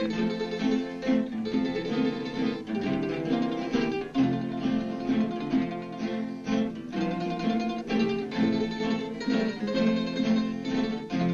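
Acoustic guitar being played, strummed chords and picked notes in a continuous run.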